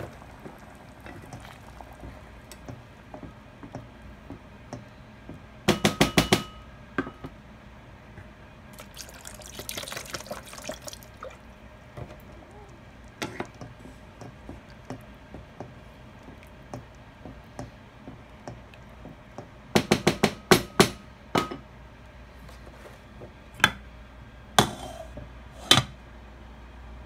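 A spoon stirring thick tomato sauce in a pot, with two short bursts of quick knocks against the pot, about six and twenty seconds in, and a few single clinks near the end as a glass lid is set on the pot.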